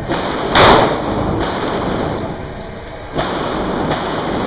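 Two handgun shots, about two and a half seconds apart, each echoing in the hard-walled indoor range.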